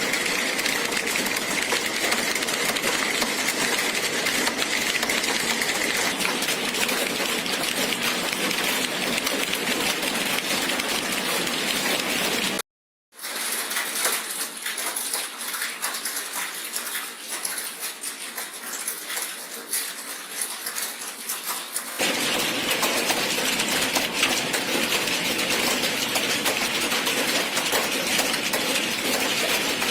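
Many computer keyboards clicking at once in a dense, continuous clatter of fast typing. The sound cuts out for a moment about halfway through, then comes back quieter for several seconds before returning to full level.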